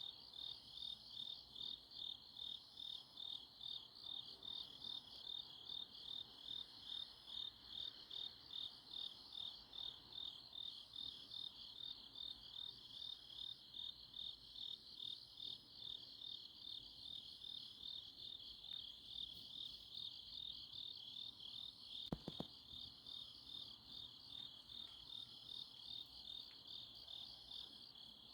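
Faint chorus of grass insects chirping at night: a steady pulsing chirp, about two to three pulses a second, with fainter high chirps repeating every second or so. A brief click comes about three-quarters of the way in.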